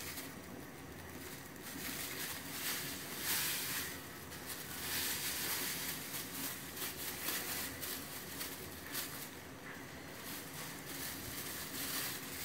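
Clear plastic bag of sugar crinkling on and off in the hands as sugar is shaken from it into a bowl of flour.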